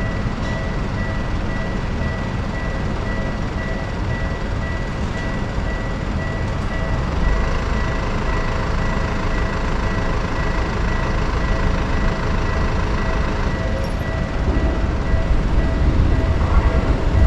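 Japanese railway level-crossing alarm ringing its steady electronic warning bell. A train's low rumble builds under it over the last few seconds as the train approaches.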